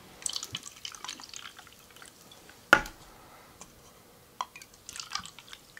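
Carbonated soda being poured from a glass bottle into plastic cups, fizzing and crackling with many small ticks. Two sharp knocks, a little under three seconds in and at about four and a half seconds.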